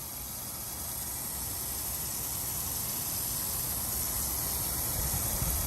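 Water gushing from an open supply hose as the line is bled to flush out dirt: a steady hiss that slowly grows louder.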